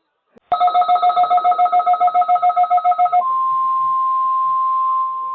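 A rapidly pulsing electronic beep tone, about seven beeps a second, then a steady single-pitch alert tone near 1 kHz. The steady tone fits NOAA Weather Radio's 1050 Hz warning alarm tone.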